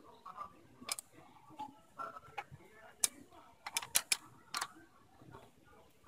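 Sharp metallic clicks and taps of a thin steel rod against a disc brake caliper as it is set against the pad retaining pin. A few single clicks, then a quick run of three or four near the middle.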